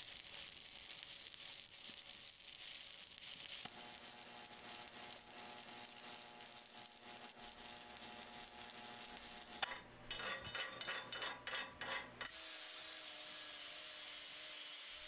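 Stick-welding arc on a 7018 rod running a vertical-up fillet pass at about 130 amps: a steady crackling hiss. About ten seconds in it gives way to a few seconds of irregular scraping and knocking.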